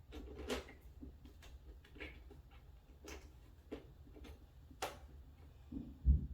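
Irregular clicks and light knocks of screws being tightened by hand into the flat-pack cabinet's panels, about one every second, with one louder low thump near the end.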